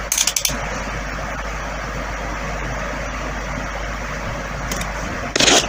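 Steady background noise with a low constant hum, like a fan or distant traffic, broken by two short, sharp noises: one just after the start and one near the end.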